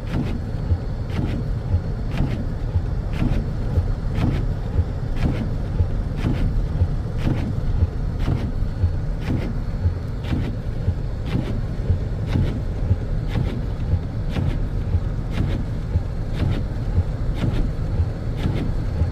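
Car cabin sound while driving: a steady low rumble of the engine and tyres on the snowy road, with short sharp ticks repeating evenly about twice a second.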